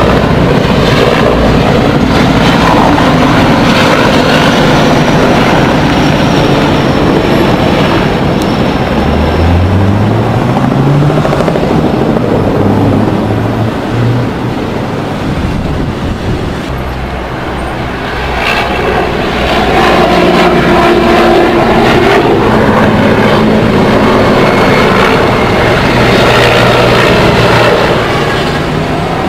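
Mi-8 and Ka-52 military helicopters flying low overhead: a loud, continuous rotor and turbine roar that eases for a few seconds in the middle and swells again. A rising engine note, like a nearby vehicle accelerating, comes through about ten seconds in.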